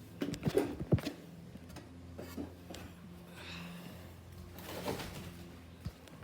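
Casablanca Hermosa ceiling fan's motor humming steadily, with a few sharp knocks and clicks in the first second and another about five seconds in.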